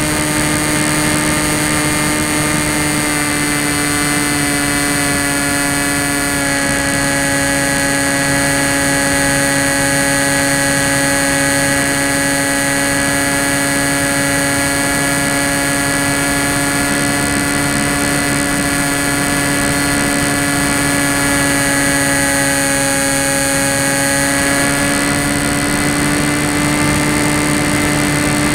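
Tek Sumo foam flying wing's electric motor and propeller running steadily in flight, heard from the onboard camera: a constant buzzing drone with a thin high whine above it, over a rush of air. The pitch shifts slightly about six seconds in and again near the end.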